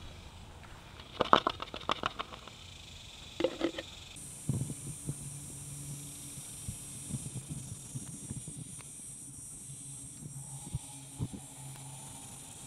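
Engine oil gurgling and splashing as it is poured from a plastic measuring cup into a funnel, in two short bursts. Then a steady low hum with a few faint clicks.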